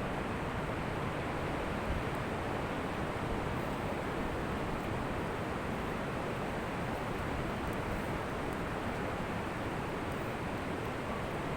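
Ocean surf on a beach: a steady rushing wash of waves with no distinct single breaks standing out.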